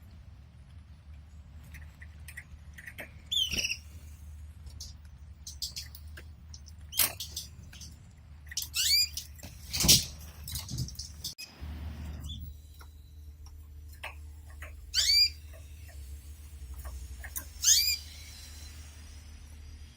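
Pet canaries giving short, separate chirping calls every few seconds, each a quick falling note, with scattered sharp taps and rustles from the birds moving about the cage. A low steady hum runs underneath.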